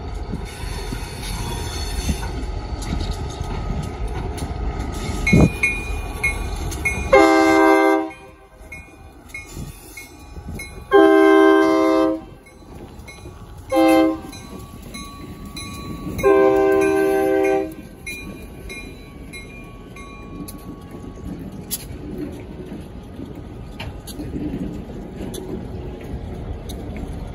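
Diesel locomotive air horn sounding the grade-crossing signal, long, long, short, long, starting about seven seconds in, over the steady rumble of the E&LS locomotives approaching and passing.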